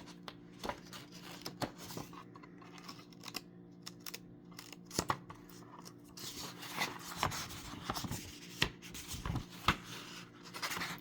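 Pages of a picture book being handled and turned: soft paper rustling with scattered small taps and clicks, busier in the second half.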